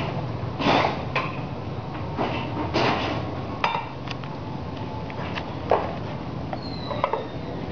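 Scattered clinks and knocks of metal cookware, an aluminium soup pot and its lid, over a steady background hiss.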